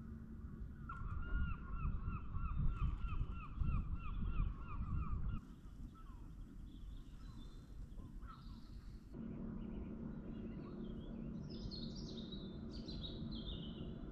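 Waterside birds calling at dusk: first a rapid run of about a dozen repeated calls over a low rumble, then after a quieter stretch a steady low hum with high chirping bird calls near the end.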